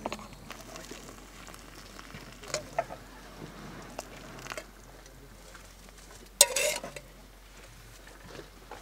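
Small rustles and clicks of dry soup mix and plastic packaging being handled, then about six seconds in a short splashing pour of water into a camp cup to make instant soup.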